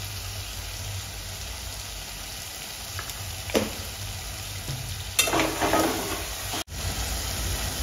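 Chicken pieces in thick masala sizzling in a pot on a gas flame, with a single sharp click about three and a half seconds in. After about five seconds a spoon stirs the masala, scraping against the pot.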